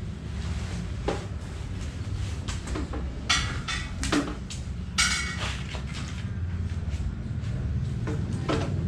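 Fiberglass tent poles and polyester tent fabric being handled while a dome tent is pitched: short scrapes, rustles and knocks, the loudest about three and five seconds in, over a steady low rumble.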